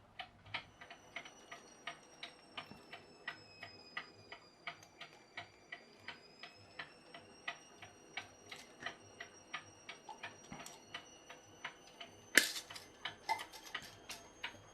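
Mechanical clock, partly rebuilt with 3D-printed parts, ticking steadily at a few ticks a second. One louder sharp click about twelve seconds in.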